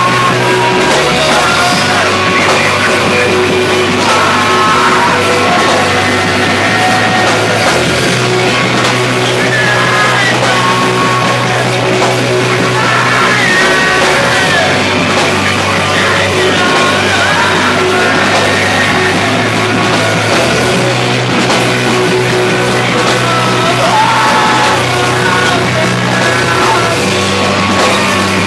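Live rock band playing loudly: electric guitars, bass and drums with cymbals, under yelled vocals, with a bass line that moves from note to note every second or two.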